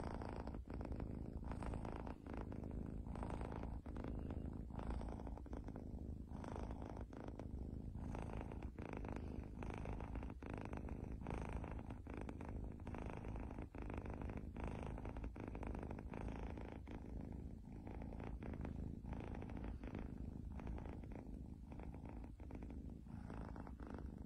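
A kitten purring continuously, close to the microphone.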